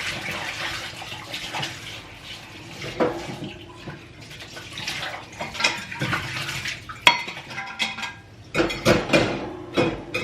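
Pots and utensils being washed by hand at a kitchen sink: metal and crockery clattering and knocking, with water running. The clatter is densest near the end.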